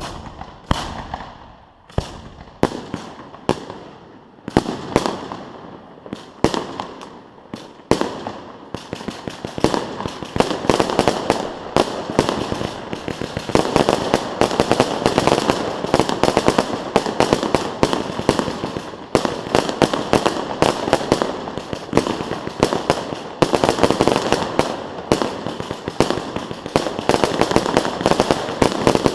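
Fireworks going off: separate sharp bangs, each with a fading echo, every half second or so for about eight seconds. Then a dense, rapid barrage of bangs and crackling that keeps on.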